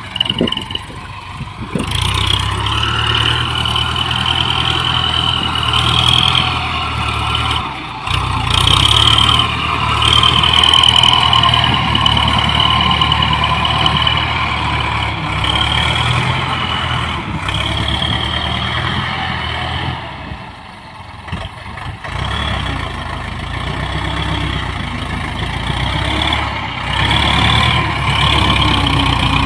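Ford 6610 tractor's four-cylinder diesel engine running steadily under load as it pulls a disc harrow across rough ground, with a high whine wavering above the engine note. The engine eases off briefly about two-thirds of the way through.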